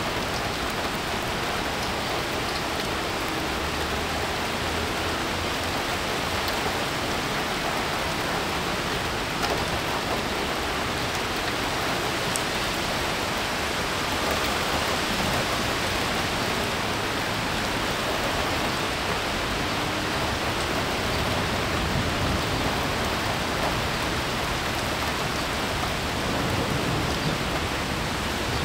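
Steady rushing noise of gusty wind and light rain as a thunderstorm moves in, with a short low rumble about four seconds in and again near the end.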